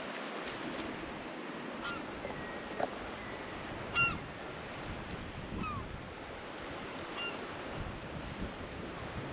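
Steady wash of the sea against the rocky shore below, with a bird calling four times in short calls, the loudest about four seconds in.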